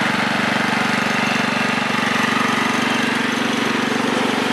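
Kohler Command 15 hp OHV engine of a 1996 Craftsman riding mower running steadily, with an even, rapid pulse.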